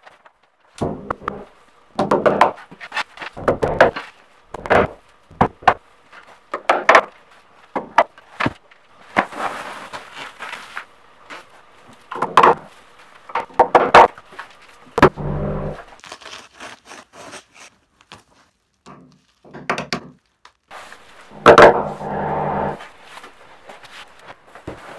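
Irregular knocks, thuds and rustles of a sheet of foil-faced bubble insulation being unrolled, handled and fixed up against a wall, with the loudest cluster of knocks near the end.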